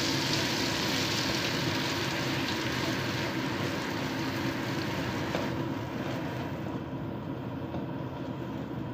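Sliced onion and chopped garlic sizzling in hot oil in a wok, a steady hiss that fades gradually over the last few seconds.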